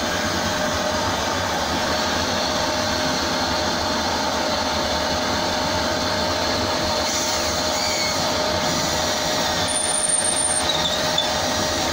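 Vacuum cleaner running steadily, its hose nozzle held at the wall under the drill bit to catch plasterboard dust: an even rushing noise with a constant whine.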